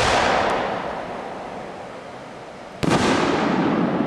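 Homemade aerial fireworks bursting: a loud bang right at the start rolls away in a long echo, and a second bang nearly three seconds in echoes away the same way.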